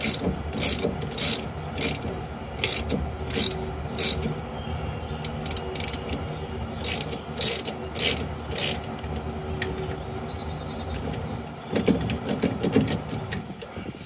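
Ratcheting wrench clicking in steady strokes, a little under two a second, as it turns the bolt of a harmonic balancer puller drawing the front pinion yoke off a 1999 Chevrolet Silverado. The ratcheting pauses for a few seconds in the middle, and a few louder metallic knocks come near the end.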